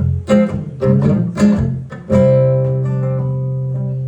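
Live band music without singing: guitar chords strummed in short hits, then about two seconds in a chord struck and left ringing over a held low note.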